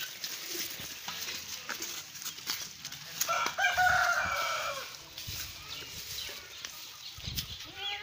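A rooster crowing once, about three seconds in, a drawn-out call of about a second and a half, over light scattered knocks and rustles.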